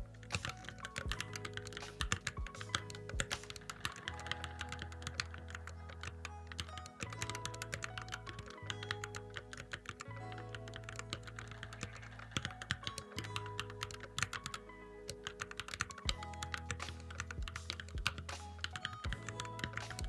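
Fast, continuous typing on a Keychron Q11 split mechanical keyboard with Hacker Mint keycaps: a dense, unbroken run of key clacks, over background music with a steady bass line.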